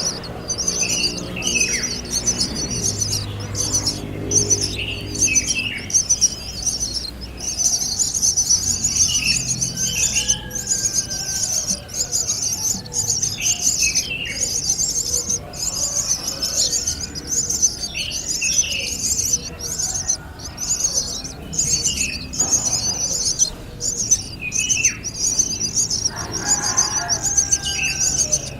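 Birds chirping: short downward chirps recur every couple of seconds over a continuous high-pitched chirring.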